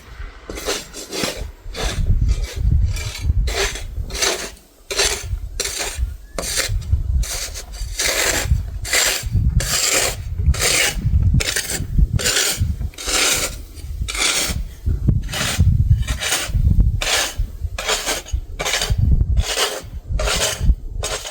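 Snow shovel scraping along the sidewalk in repeated strokes, roughly one and a half a second.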